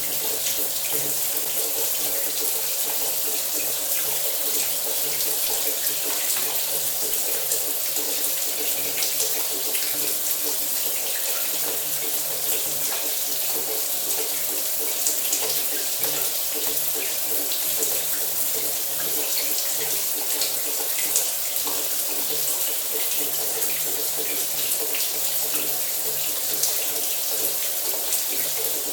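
A running shower: water spraying and splashing in a steady, even rush with a faint low hum under it.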